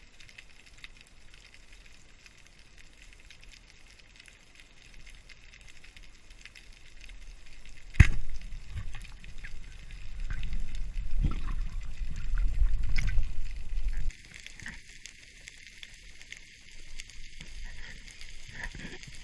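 Underwater sound heard through a camera housing: a steady faint crackling, then a sharp knock about eight seconds in, followed by low rumbling and water movement that stops abruptly about six seconds later, with scattered small clicks after.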